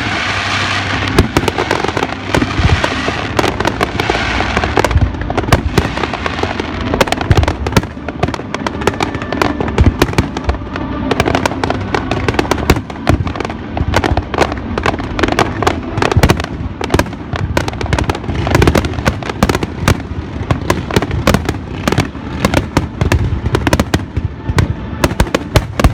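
Fireworks bursting in a dense, rapid barrage of sharp bangs and crackles, with a rushing hiss over the first few seconds.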